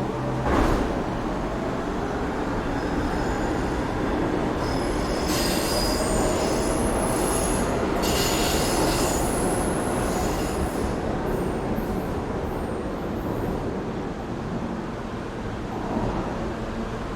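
New York City subway train running through the station over a steady rumble, its steel wheels squealing in high-pitched tones for several seconds in the middle. A single knock about half a second in.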